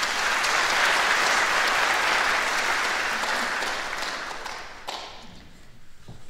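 Audience applauding, strong at first and fading away after about five seconds.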